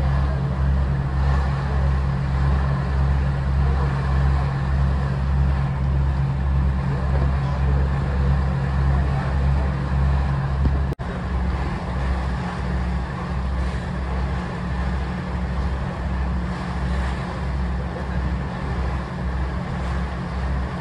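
A cruise boat's engine running with a steady low hum, over an even hiss of water rushing past the hull. About halfway through, the sound drops out for an instant and the hum comes back at a slightly different pitch.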